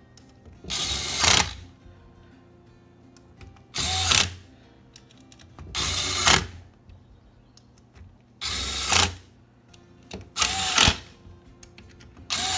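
Cordless Craftsman power screwdriver driving screws into a Thomas aerator pump's head: five short runs of under a second each, about two seconds apart, with a sixth starting right at the end.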